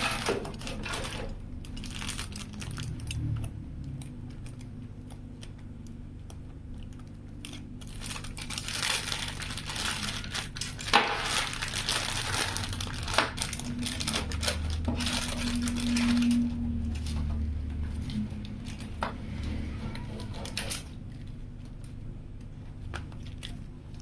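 Crinkling, rustling and tearing of packaging being handled, with scattered light clicks and knocks; the busiest handling comes a third of the way in.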